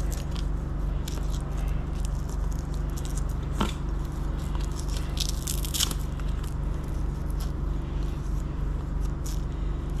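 Hands fitting a plastic number plate to a BMX bike's handlebars: small plastic clicks, crackles and scrapes, with a couple of sharper clicks midway, over a steady low hum.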